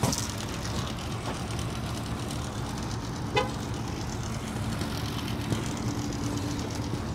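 Steady low hum of motor vehicles and traffic, with a short sharp sound about three and a half seconds in and a faint held tone near the end.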